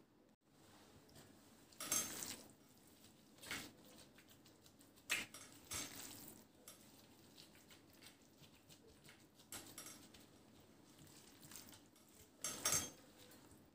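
Gloved hands handling food in glass dishes: sliced raw potatoes tossed in a glass bowl, then minced meat scooped and pressed into a glass baking dish. A few brief, scattered clinks and rustles, the loudest about two seconds in and near the end.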